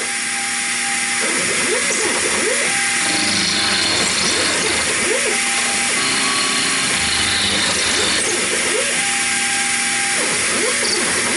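Taig CNC mill running an end mill through cast iron, cutting a small square hole in a shaper clapper. Steady cutting noise with a whine that holds one pitch for about a second, then wavers, over and over as the machine goes around the square.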